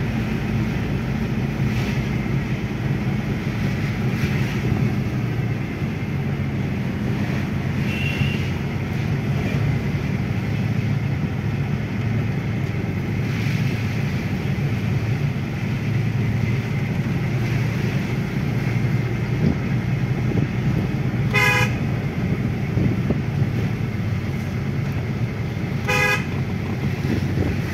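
Steady engine and road noise inside a Mahindra Bolero's cabin on a downhill drive, with two short horn toots about four and a half seconds apart near the end.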